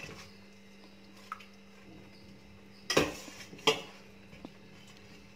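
A metal ladle knocking against a stainless steel bowl: two loud, ringing clanks about three seconds in, less than a second apart, with a light tick before and after.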